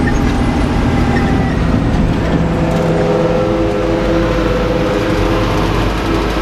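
Tractor engine running steadily under a low rumble; its engine note shifts slightly about two and a half seconds in.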